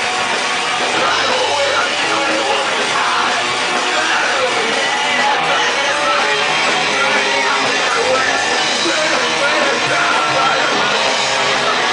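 Rock band playing live and loud through amplifiers: distorted electric guitar and bass over drums and cymbals, with shouted vocals, in one dense, unbroken wall of sound.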